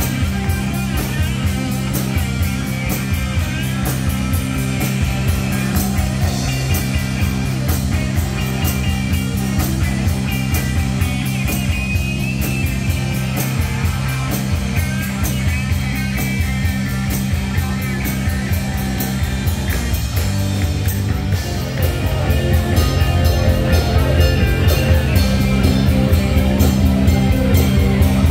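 Live rock band playing through a PA: drums keeping a steady beat under electric guitars, bass and keyboard. The music gets louder about three-quarters of the way through.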